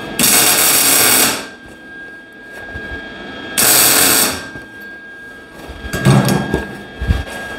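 MIG welder laying two short tack welds on sheet steel, each a steady arc crackle, the first about a second long and the second a little shorter. A few low knocks follow near the end.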